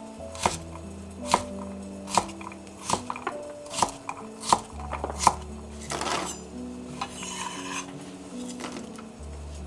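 Kitchen knife chopping a carrot on a wooden cutting board, about seven knocks a little under a second apart. Then the blade scrapes across the board twice as the diced pieces are gathered up. Soft background music with held notes runs underneath.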